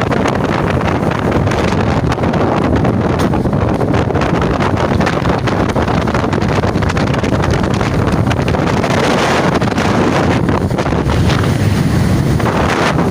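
Loud, steady rush of floodwater pouring through a river barrage, with heavy wind buffeting the microphone.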